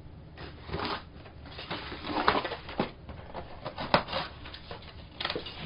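Rustling and handling of packaging as items are pulled out of a cardboard box, with scattered taps and knocks; the sharpest come a little over two seconds in and about four seconds in.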